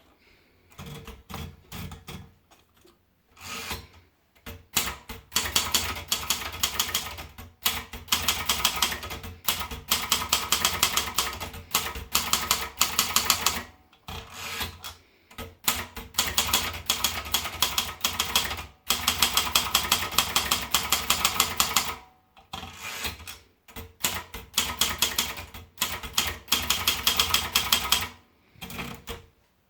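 Sperry Remington Ten Twenty typewriter being typed on: runs of rapid key strikes, each a sharp clack, with short pauses between the runs.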